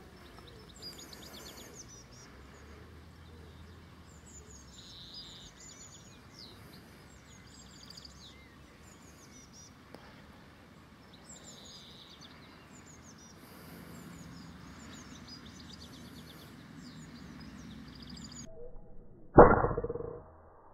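Small birds chirping and calling over a faint outdoor background. About nineteen seconds in comes one loud shot from a Weihrauch HW100 pre-charged pneumatic air rifle, fading over about a second.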